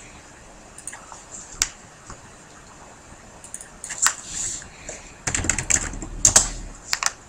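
Typing on a computer keyboard: a couple of single clicks, then a quick run of keystrokes from about five seconds in as a password is retyped.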